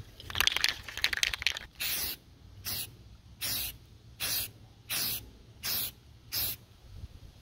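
A Rust-Oleum aerosol spray-primer can rattling briefly as it is shaken, then spraying in seven short hissing bursts, about one every three-quarters of a second, misting on a primer coat.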